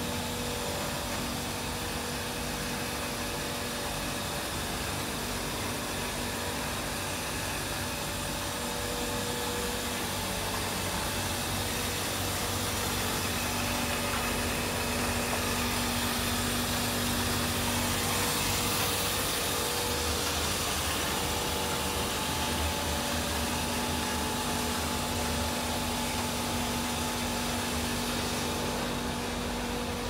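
Steady machinery din of a waste-oil hydronic boiler plant running, with its circulating pumps: a constant whirring rush with a steady hum underneath, swelling a little about halfway through.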